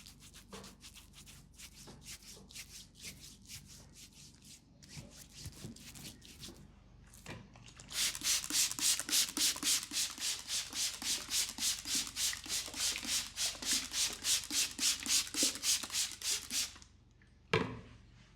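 Palms rubbing over skin in a massage. Soft, uneven strokes give way, about halfway through, to fast, loud back-and-forth rubbing at about three strokes a second, which stops abruptly. A single sharp knock comes near the end.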